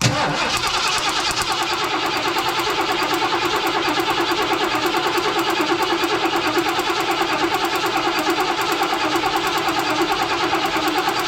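Ford 460 big-block V8 being cranked over by its starter motor with the coil wire pulled so it cannot fire, for a compression test. A steady, rhythmic cranking that starts abruptly and stops near the end.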